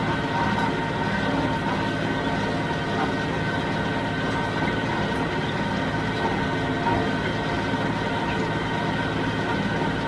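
John Deere 5055D tractor's diesel engine running steadily at a constant speed.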